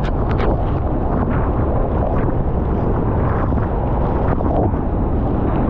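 Bridal Veil Falls pouring down at very close range: a loud, steady rush of falling water, heaviest in the lows, with spray and wind buffeting the microphone.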